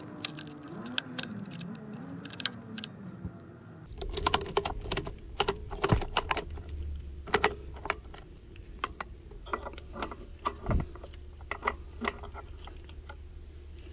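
Metallic clinking and clicking of drum brake hardware: return springs and shoes being fitted by hand with tools, in irregular sharp ticks. A low steady hum comes in about four seconds in.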